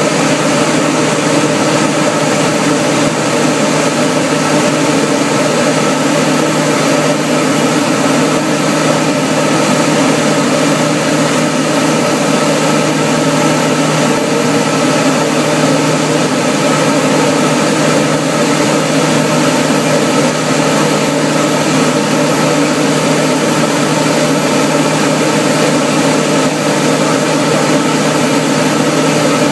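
Cabin noise of a single-engine propeller airplane in flight: the piston engine and propeller run at a steady, unchanging pitch under a constant rush of air.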